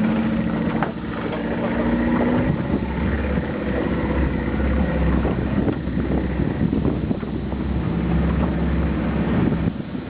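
A motorboat's engine running steadily under way, with wind noise on the microphone.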